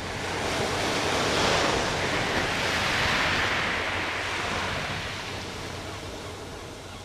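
Sea surf washing up a shingle beach, a steady rushing that swells over the first couple of seconds and then slowly fades away.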